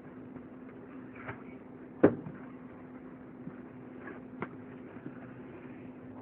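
A single sharp knock about two seconds in over a steady low hum, with a few faint clicks.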